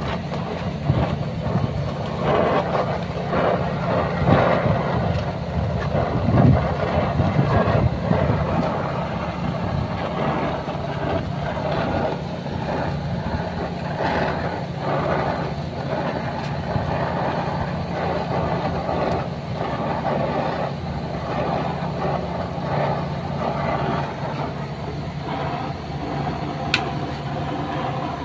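Gas brazing torch hissing steadily while a copper refrigerant line is brazed onto a replacement compressor, over a steady low machine hum. The torch noise is louder in the first few seconds, and there is one brief sharp tick near the end.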